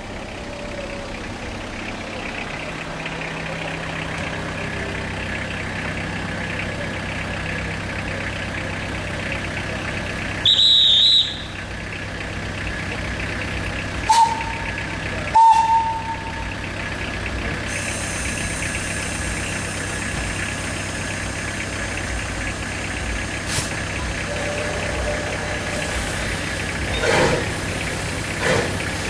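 Steam tank locomotive waiting at a level crossing over a steady hum, with one loud high whistle blast about a third of the way in and two short lower toots a few seconds later. From about two-thirds in, steam hisses, and near the end the first exhaust chuffs come as the locomotive starts to move.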